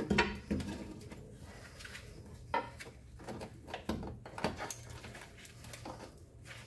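Irregular metal clinks, knocks and short scrapes of a bolt, spacer and pry bar being worked against the rear subframe of a 2004 Honda CR-V while the subframe is lowered to fit a lift-kit spacer.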